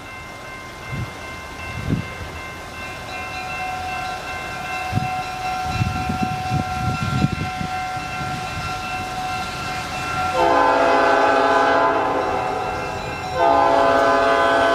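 Diesel-electric freight locomotives (an EMD SD9 and SD40-2) approaching: a steady whine over engine rumble with a few low thumps, then about ten seconds in the multi-chime air horn sounds two long blasts, the second still going at the end.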